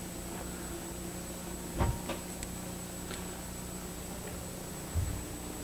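Quiet lecture-room background: a steady low electrical hum with a faint high whine, and two soft knocks, one about two seconds in and one near the end.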